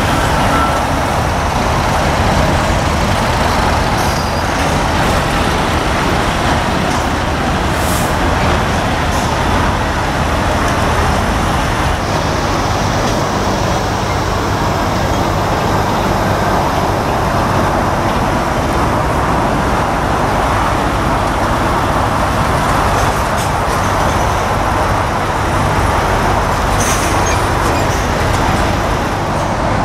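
Diesel lorry engines running at low speed as articulated trucks manoeuvre, a steady low rumble throughout. Brief hisses, typical of air brakes, come a few times, the clearest about a quarter of the way in and again near the end.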